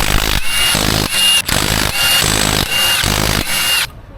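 Air-powered shop tool run in about five short bursts, each opening with a brief high whine, stopping shortly before the end.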